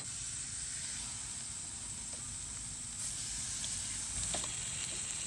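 Steak sizzling steadily on a stainless steel BBQ plate over a campfire.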